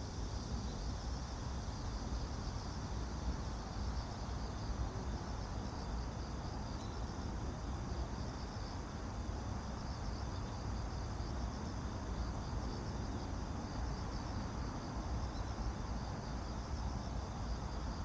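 Insects chirping steadily in a high band, over a steady low rumble.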